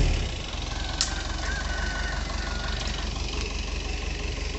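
Excavator's diesel engine dropping back to idle at the start, then idling with a steady low throb. A single sharp click comes about a second in.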